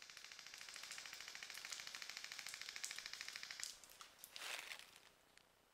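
Airsoft electric gun firing one long full-auto burst: a fast, even train of small pops, well over ten a second, lasting about three and a half seconds. A brief swish follows about a second later.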